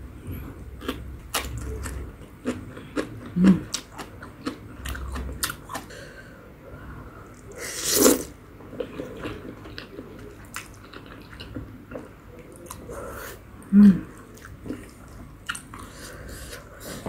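Close-up chewing and biting sounds of someone eating spicy instant ramen noodles and napa cabbage, with many wet mouth clicks throughout. About eight seconds in there is a loud slurp as a mouthful of noodles is drawn in, and twice, about three and a half and fourteen seconds in, a short low-pitched mouth sound.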